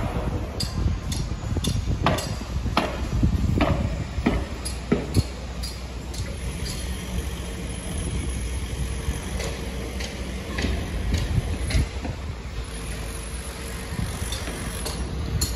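Construction-site metalwork: metal striking metal in a run of ringing clangs about two to five seconds in, then scattered lighter clinks, over a steady low rumble.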